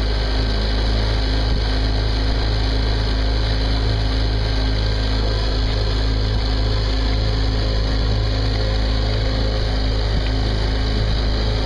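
Small sailing yacht's engine running at a steady speed under way, an even unbroken drone.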